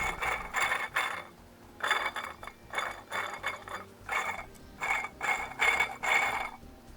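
A small metal mechanism worked in short repeated strokes, about ten of them at one to two a second, each with a faint ringing tone.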